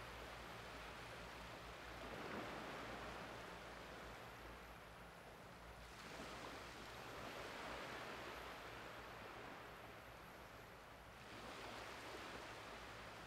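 Small waves washing in over a shallow, flat sandy beach on an incoming tide, the soft surf swelling and easing every four to five seconds. A low steady hum runs underneath.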